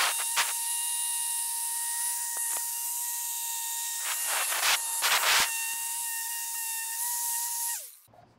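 Small 3-inch dual-action polisher with a wool pad running at speed 5, compounding a headlight lens: a steady whine over a loud hiss, with two brief louder rushes around the middle. Near the end the motor winds down with a falling whine and stops.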